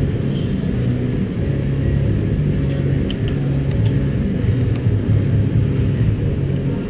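Background rock music muffled to a low rumble: everything but its bass line is cut away, and the bass notes shift every half second or so.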